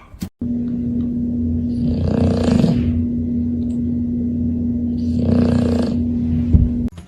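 Snoring, two long breaths about three seconds apart, over a steady low hum.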